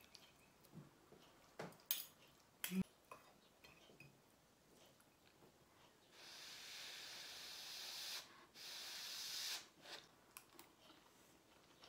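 Metal cutlery clinking and tapping against a ceramic plate during a meal, a few sharp clicks about two seconds in. Later comes a steady hiss lasting about three and a half seconds, broken once briefly.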